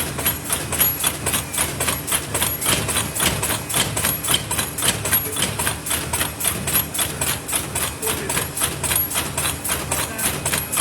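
Paper lid making machine running, its forming and punching stations striking in a fast, even mechanical clatter of about three strokes a second over a steady hum.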